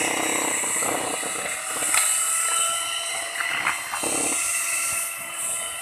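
Electric hand mixer running steadily, its beaters whipping a thick chocolate cream mixture in a metal bowl.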